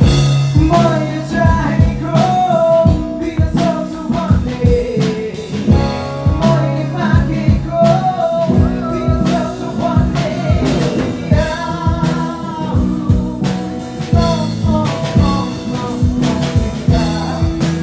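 A song with a woman's sung vocal over a drum kit and band accompaniment, with a steady beat.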